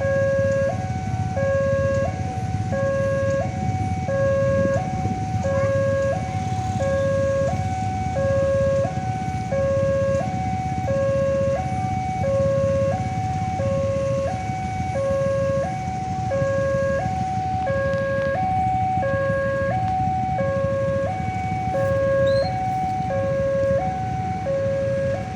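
Railway level-crossing warning alarm sounding a steady two-tone electronic hi-lo, about one low-high cycle every second and a half. A low steady rumble runs underneath.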